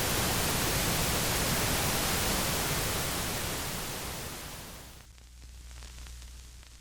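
A steady, loud hiss like static that fades away about four to five seconds in, leaving a faint low hum.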